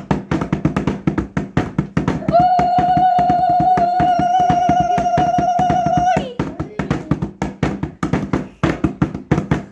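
Upbeat dance music with a fast, steady percussive beat. About two seconds in, a single high note is held for about four seconds, then stops and the beat carries on.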